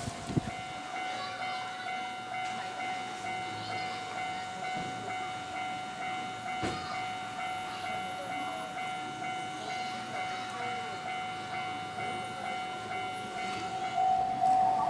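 Japanese railway level-crossing warning alarm ringing its electronic 'kan-kan' bell, a pitched tone repeating in a fast, even rhythm. There is a single sharp knock about two-thirds of the way in, and the alarm gets louder near the end.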